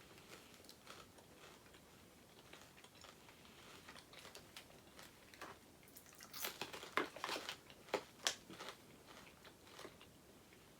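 Chocolate-covered caramel popcorn being bitten and chewed, with faint scattered clicks at first and a cluster of louder sharp crackles from about six to nine seconds in.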